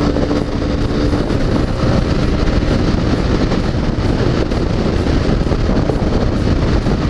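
Yamaha XTZ 250 Lander's single-cylinder engine running at highway speed, about 110 km/h, under a steady rush of wind on the microphone, with the bike now pulling normally once a fuel-filter obstruction was cleared. A steady engine tone fades out in the first second or two.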